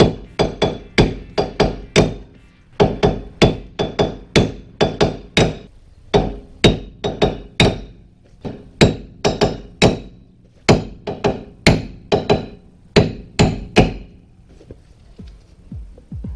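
Sharp metal-on-metal hammer blows knocking the wheel studs out of a worn rear wheel hub from a 2006 Scion tC, to save the studs. The blows come at about two a second in runs with short pauses and stop a couple of seconds before the end.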